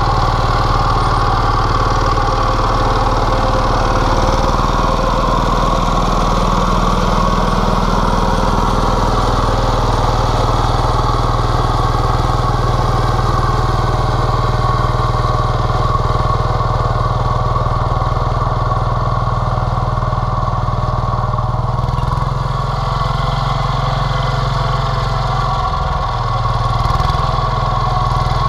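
Tobata walk-behind micro-tractor engine running steadily under load while it tills a lettuce bed into the soil.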